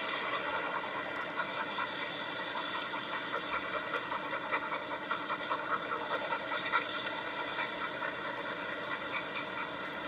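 Steady rushing noise played back through a laptop's small speaker, with no clear voice or distinct event in it.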